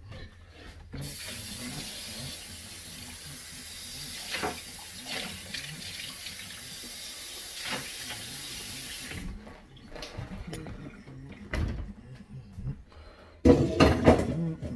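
A steady rushing hiss starts about a second in and cuts off abruptly after about eight seconds. Near the end come a few seconds of loud clattering handling noise.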